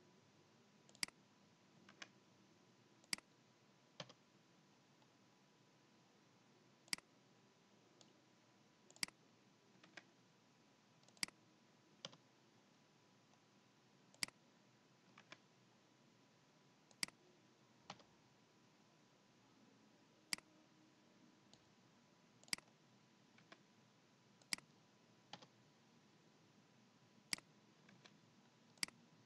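Computer mouse button clicks, single sharp clicks at irregular intervals of one to three seconds, about twenty in all, over a near-silent room.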